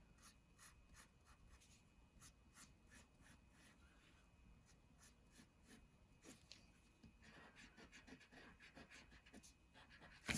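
Faint pencil strokes scratching on paper: a string of short, irregular scratches with a slightly longer stroke near the end.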